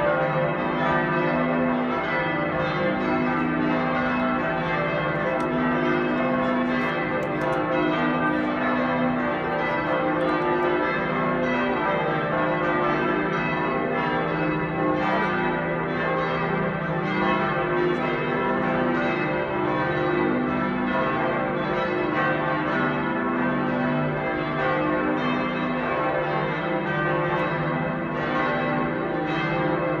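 Church bells of Giotto's Campanile ringing together in a continuous, overlapping peal, several bells of different pitch striking over and over without a pause.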